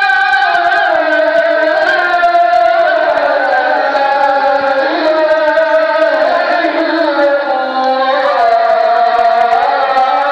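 A solo voice chanting loudly in long held notes that slowly glide and waver up and down, in an ornamented, melismatic style.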